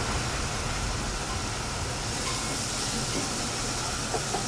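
Chopped shallots sizzling steadily in hot clarified butter in a sauté pan.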